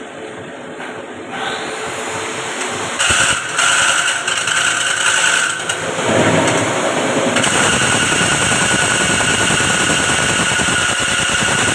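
A milling machine running under power, getting louder over the first few seconds and settling into a steady, even run with a constant high whine from about seven seconds in.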